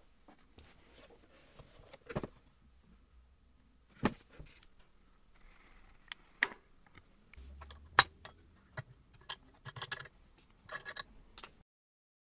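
Irregular clicks, knocks and light metallic jingling of small hard parts being handled, with the sharpest click about eight seconds in and a busier run of clatter near the end.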